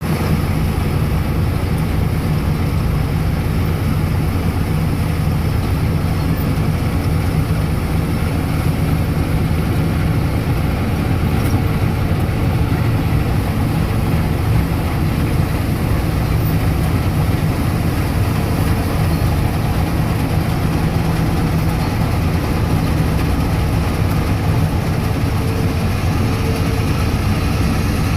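New Holland combine harvester's diesel engine and threshing machinery running steadily at work, a deep, even drone.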